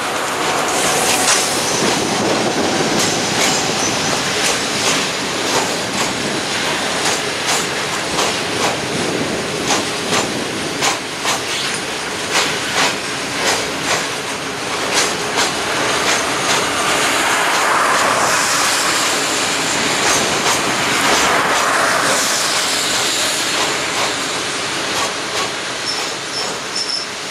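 Loaded freight wagons rolling past on the curve: steady wheel-and-rail rumble with repeated clicks and clatter as the wheels cross rail joints, and a stretch of wheel squeal past the middle. The sound fades near the end as the last wagons move away.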